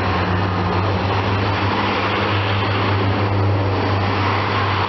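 British Rail Class 143 Pacer diesel multiple unit pulling out past the camera, its underfloor diesel engines running with a steady low hum over the rumble of the wheels on the track.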